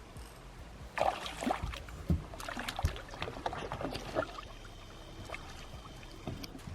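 Irregular splashing, clicks and knocks on a fishing boat for a few seconds, starting about a second in, as a hooked bass is handled at the boat.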